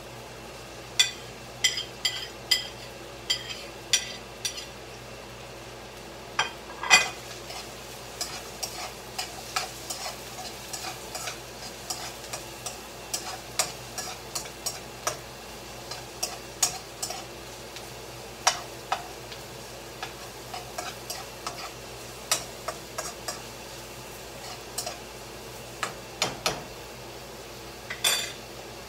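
A utensil scraping and tapping against a pan as onion, garlic and ginger are stirred and sautéed, with a steady sizzle of frying underneath. The taps come irregularly, a couple a second at times.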